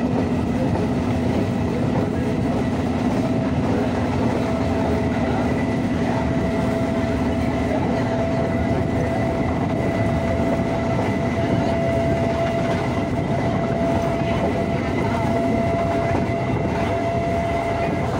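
Chennai suburban electric local train running along the line, heard from inside the carriage beside an open window: a steady rumble and rail noise with a thin, steady high tone over it.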